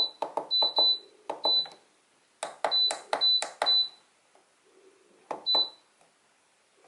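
Buttons on a pet drying cabinet's electronic control panel being pressed, each press a click followed by a short high beep. About nine beeps come in uneven groups, with a pause in the middle and a last one near the end.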